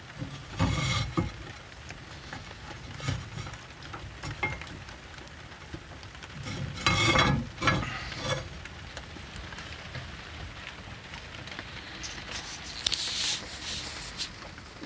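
Two bouts of metal scraping and clunking from the top lid of a small cast-iron wood stove being worked by hand, about half a second in and again around seven seconds, with a few light knocks between. Rustling near the end.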